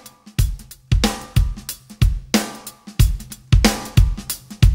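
Background music: a steady drum-kit beat of bass drum, snare and cymbals, about two hits a second, with no singing.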